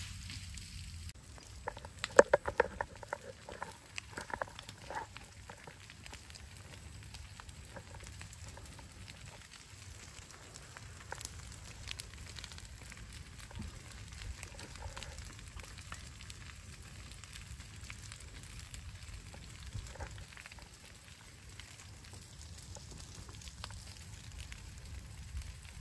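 Burning windrow of cleared brush crackling and popping steadily. A short run of pitched calls sounds over it about two seconds in.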